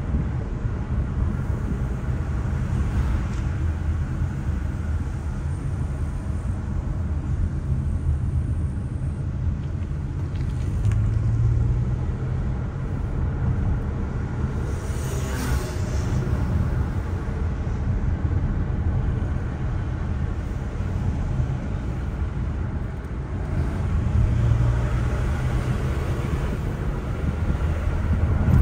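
Steady low rumble of a car driving along a road, with engine and tyre noise heard inside the cabin. A brief hiss rises and fades about halfway through.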